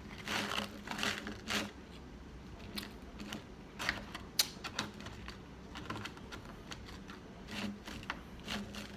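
Close-miked chewing of crispy fried chicken tenders, an irregular run of sharp crunches and crackles.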